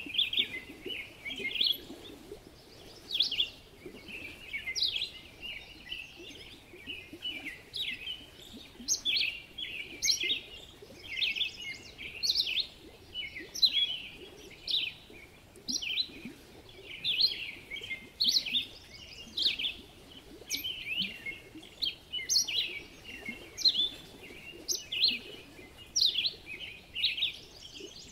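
Birds chirping: many short, quick chirps, repeating every second or so.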